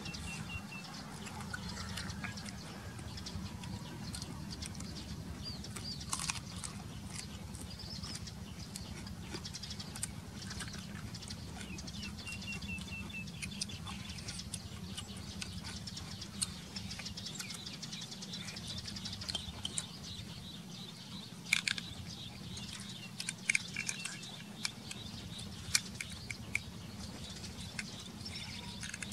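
Snail-eating sounds: snails sucked out of their shells, with short clicks and ticks of shells and toothpicks, a cluster of sharper clicks a little past two-thirds of the way through. Small birds chirp briefly now and then over a steady low rumble.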